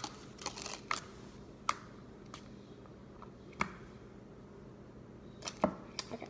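Thick clear slime being poked and pressed with the fingers, giving a scattering of short sharp clicks and pops at irregular intervals.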